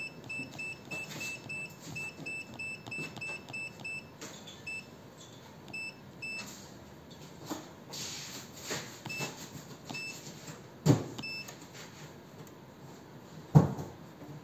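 Short electronic key beeps from a transformer turns ratio tester's touchscreen, one for each stylus tap, about three a second for the first six seconds, then a few scattered ones. Two dull knocks come later, the second, near the end, the loudest.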